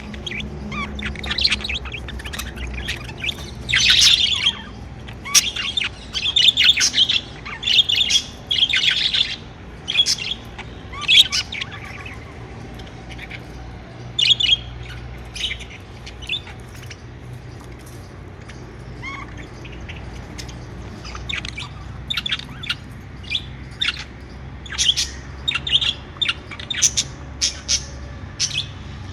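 Pet budgerigars chirping in quick bursts of short, high calls, with a quieter lull about halfway through before the chirping picks up again.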